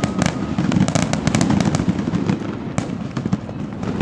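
Fireworks display going off continuously: many sharp cracks in quick succession over a steady low booming.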